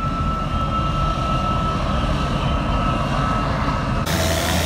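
Vintage single-engine MiG jet fighter taxiing, its jet engine running with a steady high whine over a low rumble. The whine cuts off abruptly near the end.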